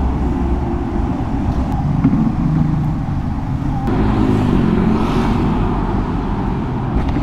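Busy road traffic, cars and motorcycles going by in a steady rumble, with one vehicle's engine passing more loudly about four seconds in.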